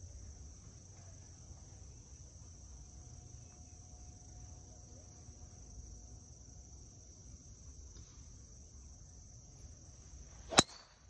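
A golf driver strikes a teed ball with a single sharp crack near the end. Before it, a steady high-pitched insect drone runs under a faint low rumble.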